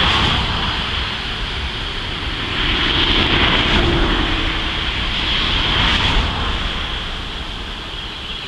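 Highway traffic passing: a rushing swell of tyre and engine noise, loudest from about three to six seconds in, then fading.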